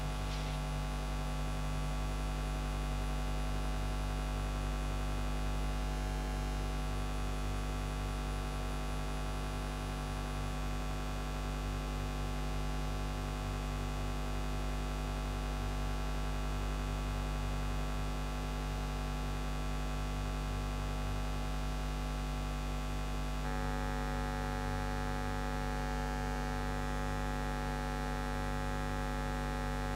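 Steady electrical mains hum: a buzzing stack of fixed tones with no other sound. About 23 seconds in, a few higher tones in the hum grow stronger.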